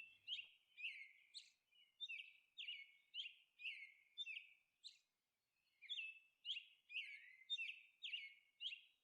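Faint bird chirping: short, quickly falling chirps repeated about twice a second, with a brief pause around the middle.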